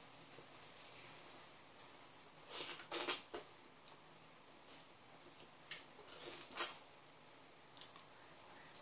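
Close-miked chewing and wet mouth sounds of someone eating very ripe, juicy pineapple, coming in short bursts: a cluster about two and a half to three and a half seconds in, and the loudest a little after six seconds.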